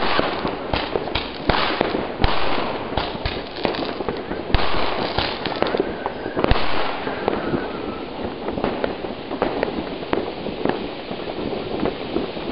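Firecrackers banging and crackling in quick succession over the steady hiss of a ground fountain spraying sparks. The bangs come thick for the first half, with the loudest a little past the middle, then thin out to scattered pops.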